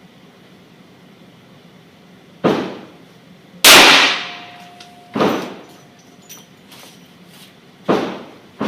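Revolver shots from a .357 Magnum revolver firing .38 Special handloads of 7 grains of Longshot under a 174-grain Keith bullet. There are four sharp reports roughly a second or more apart, the second by far the loudest, and another comes right at the end.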